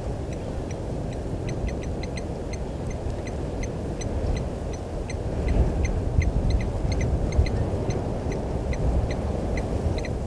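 Low wind rumble on an outdoor microphone, with a quick, uneven run of short, sharp, high-pitched animal calls, several a second.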